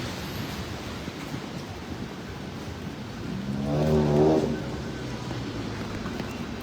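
A motor vehicle's engine accelerating past, its pitch rising and then falling, loudest about halfway through. Underneath is a steady hiss of traffic and rain on a wet city street.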